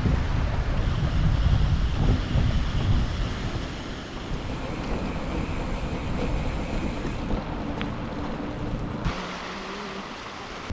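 Wind buffeting the microphone of a camera carried on a moving bicycle, a dense rushing noise with heavy low rumble that eases off about four seconds in and thins further near the end.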